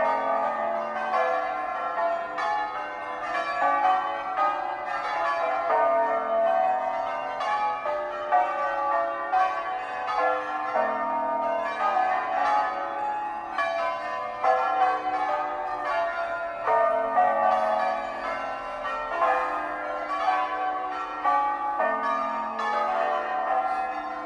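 Tower bells ringing from inside the bell tower, close and loud. Strokes come one after another in a steady run, and each bell's ringing overlaps the next.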